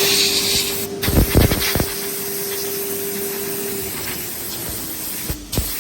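Woodworking CNC router running: a steady machine tone with a hiss of air that cuts off about a second in, followed by a quick run of knocks. The tone fades out about four seconds in, and another pair of knocks comes near the end.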